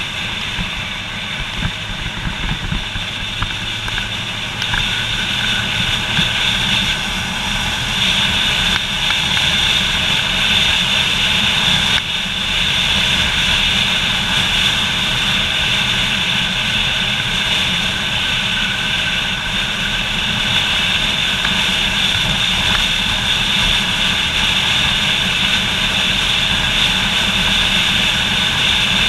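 Motorcycle under way: its engine running steadily under a constant rush of wind noise, growing a little louder after about five seconds.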